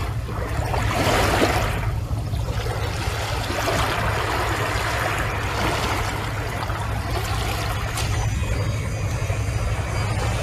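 Small waves washing onto a beach, a continuous wash of water noise that swells and eases every couple of seconds over a steady low rumble.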